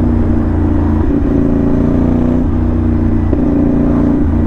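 CFMoto NK450's 270-degree-crank parallel-twin engine running under way through a loud aftermarket SC Project-style slip-on exhaust. The note stays steady, with small shifts in pitch about a second in and again past three seconds.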